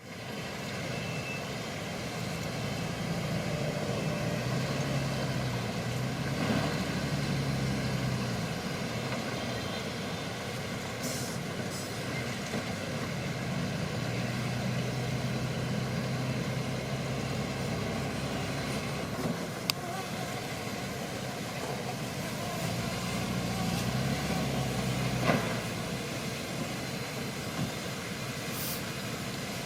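Shantui crawler bulldozer's diesel engine running steadily, its pitch shifting up and down now and then as it works. Two sharp clanks stand out in the second half.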